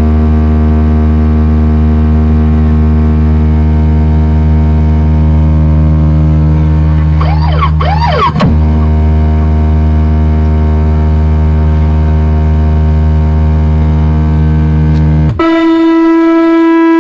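A loud, sustained, horn-like electronic drone played through a DJ sound system, with a brief wavering pitch sweep about halfway through. Near the end it switches abruptly to a higher held tone.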